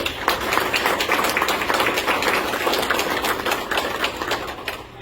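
Audience applauding: many people clapping at once, starting suddenly and dying away just before the end.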